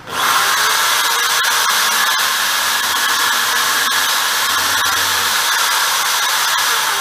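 Corded electric drill in a drilling jig switched on, starting abruptly and running steadily with a high whine as a center drill marks a hole in a turned wooden disc.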